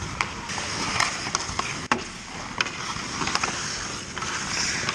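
Ice hockey skates scraping and carving the ice, with a run of sharp clacks from sticks and puck; the loudest clack comes about two seconds in.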